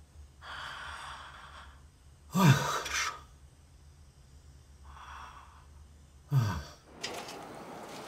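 A person sighing: two breathy exhales, and two short voiced sighs or groans falling in pitch.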